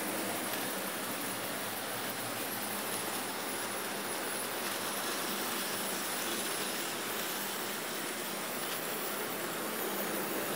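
Märklin H0 model trains running on the layout, their small electric motors and wheels on the rails making a steady running noise.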